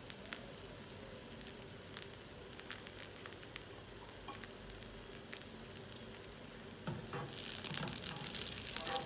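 Water bread (khobz maai) cooking in a nonstick frying pan: a faint, even sizzle with scattered small pops. About seven seconds in it turns to a much louder, rough crackling scrape as a slotted spatula is worked under the bread to turn it.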